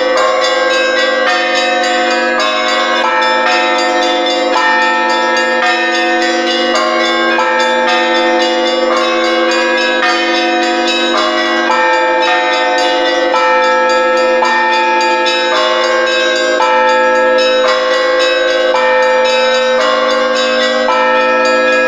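Russian Orthodox church bells rung all together for vespers: quick, overlapping strikes of the smaller bells over the steady hum of the deep bells.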